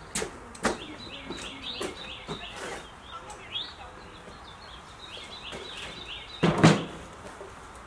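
Small birds chirping in quick runs of short, falling notes, with a few sharp knocks and one louder thump about six and a half seconds in.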